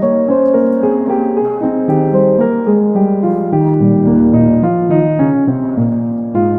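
Background music: piano playing a melody of steady, evenly spaced notes over lower bass notes.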